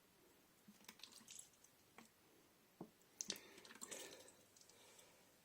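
Faint, scattered clicks and soft squelches from food and a cooking pot being handled, with the loudest click a little past three seconds in.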